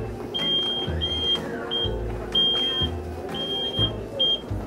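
Electric store mobility cart's reverse warning beeper sounding in short high beeps, about one a second, while its drive motor hums low in short spurts as the cart moves back and forth.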